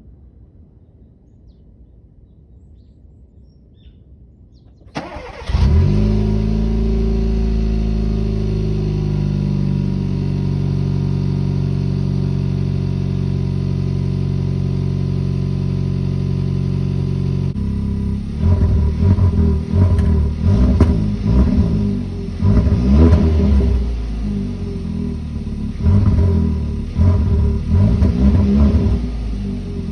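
Stock exhaust of a 2019 Kia Forte GT (K3 GT) with its 1.6-litre turbocharged four-cylinder. The engine starts about five seconds in, flares up and settles to a steady idle, then in the second half is revved in a series of short blips.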